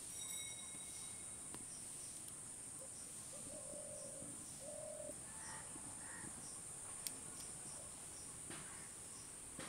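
A steady, high-pitched insect drone, with two short bird calls near the middle and a single sharp click about seven seconds in.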